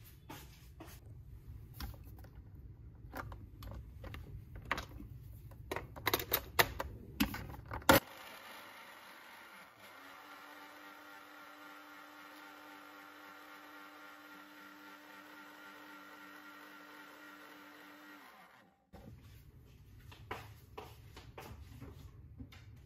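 Countertop blender running steadily for about ten seconds as it blends coffee, then stopping sharply, with a string of clicks and knocks before it starts and a few after it stops.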